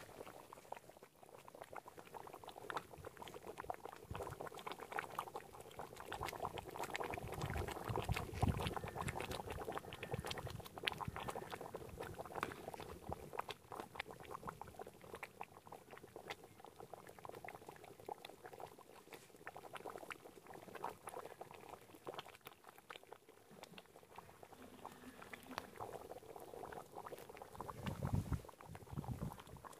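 Goat head gravy bubbling at a rolling boil in a large two-handled metal pan, a steady crackle of popping bubbles. A ladle stirs it, with a few low knocks about eight seconds in and near the end.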